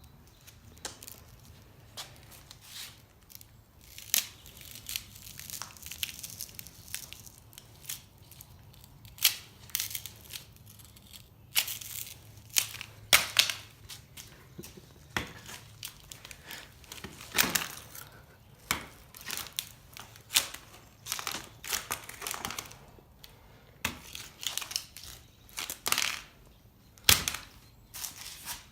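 Glass and casing of an iPhone 11 being crushed and smashed, with irregular crunching and cracking strikes and scrapes, some sharp and loud.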